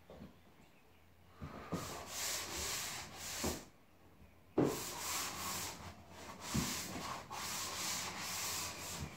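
Drywall wall being sanded by hand, a raspy scraping in two long stretches with a pause of about a second between them.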